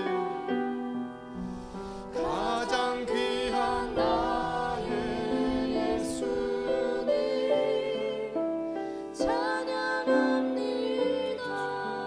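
Slow worship song: a man singing over an acoustic guitar, with long held chords.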